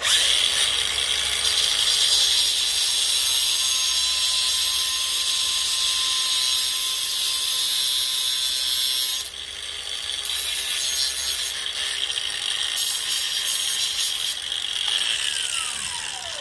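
Cordless angle grinder with a cut-off wheel running and cutting through a steel antenna whip to shorten it. The grinding starts suddenly, shifts in level after about nine seconds, and the motor's pitch falls as it spins down near the end.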